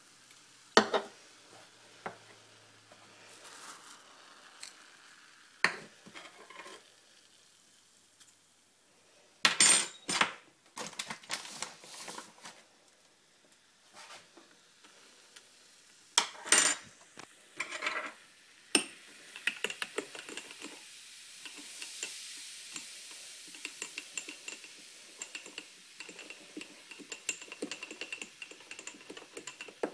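Dishes and metal utensils clinking and clattering in scattered bursts, with stirring. About two-thirds of the way in, a steady crackling hiss full of fine ticks sets in and runs on under a few more clinks.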